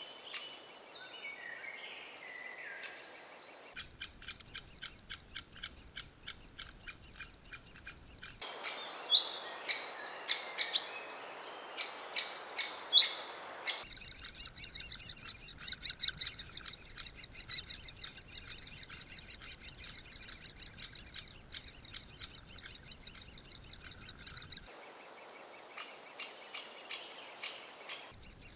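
Great spotted woodpecker nestlings begging from inside the nest hole: a rapid, continuous chatter of high ticking notes. Some loud, sharp calls or knocks stand out for several seconds about a third of the way in, and other birds sing at the start.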